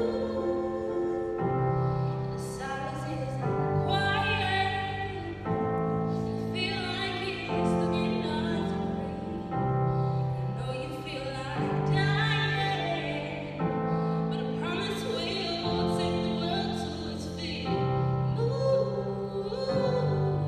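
A woman singing a slow solo into a microphone, holding notes with vibrato, over a sustained instrumental accompaniment whose chords change every couple of seconds.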